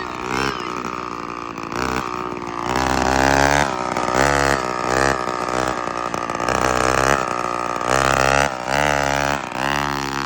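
Small straight-piped scooter engine with its muffler cut off, revving up and down, its pitch rising and sagging with short drops each time the throttle eases off. It is loud and buzzy.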